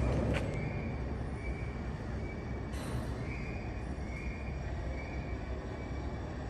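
Concrete mixer running: a steady low rumble with a short high squeal repeating roughly every second, and a metallic clank about three seconds in.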